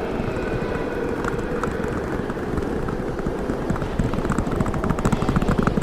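Sound-designed ambience of a strong howling blizzard wind, with a fast run of clicks and rattles building from about four seconds in.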